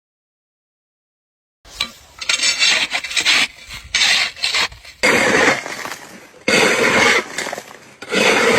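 Silence, then from about a second and a half in, a run of loud, rough rasping scrapes in irregular strokes.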